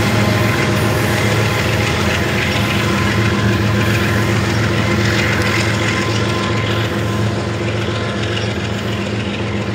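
Union Pacific diesel locomotives working under load as they pull a loaded coal train up a grade: a steady engine drone with wheel and rail noise.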